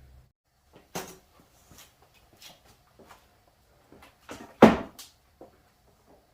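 Scattered knocks and clunks of things being handled, with one louder thump a little past halfway.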